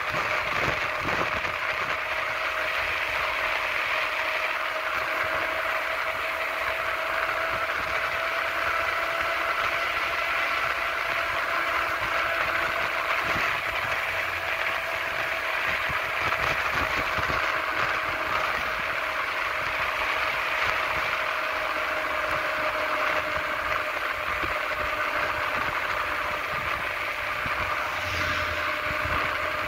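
Steady rolling and rushing noise of a fast descent on a paved road, with a thin constant whine over it. Near the end an oncoming pickup truck passes, adding a brief low rumble.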